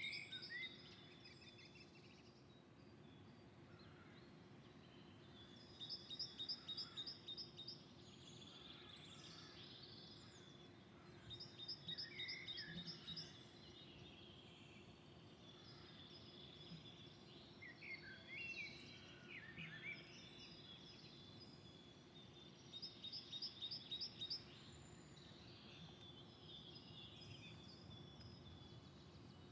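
Songbirds singing in near quiet: one bird repeats a short, rapid, high trill every five or six seconds, with other birds chirping between, over a faint steady low hum.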